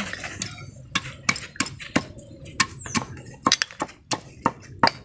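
Small freshwater snails' shells being cracked one by one with a small metal tool on a wooden block: a run of sharp, irregular clicks and knocks, two to four a second.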